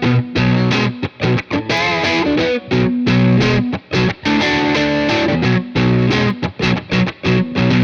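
Fender Stratocaster with Custom Shop '50s Fat Strat pickups, played on the middle pickup through an overdriven Bogner Shiva tube amp: a rock riff of chords and single notes in short, clipped phrases with brief stops between them.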